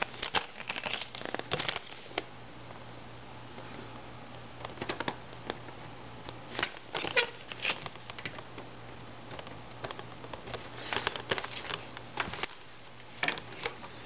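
Plastic accordion side panel of a window air conditioner being handled and slid into the unit's side rail: groups of light plastic clicks and rattles every few seconds.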